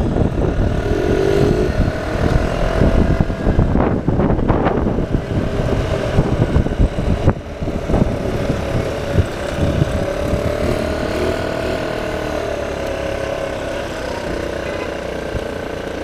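Motor scooter riding along, its small engine running with a wavering note under heavy wind rumble on the handlebar-mounted microphone, with a few sharp clicks about four seconds in; the wind and engine noise ease toward the end as the scooter slows.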